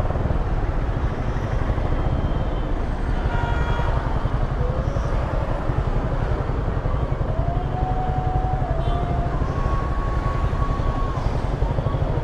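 Yamaha R15 V3's 155 cc single-cylinder engine running steadily on its stock exhaust while the motorcycle is ridden, with a few faint higher tones that slide in pitch now and then.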